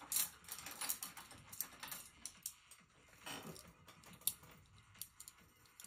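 Light, irregular clicks and taps with a couple of brief scratchy swishes, from oil-painting brushes and tools being handled at the easel; two of the clicks are sharper than the rest.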